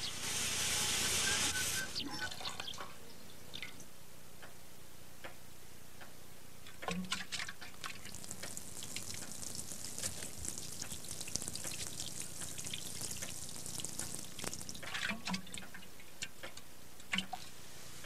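Water sprinkling from a watering can into a fish tank: a fine, steady hiss with small patters and drips that runs for about ten seconds, starting about seven seconds in. A brief hissing rush comes in the first two seconds.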